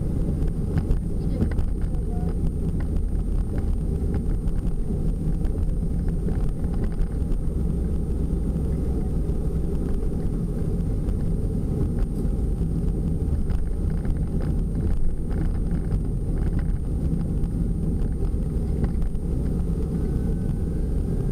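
Van driving at road speed, heard from inside the cabin: a steady low rumble of engine and tyre noise.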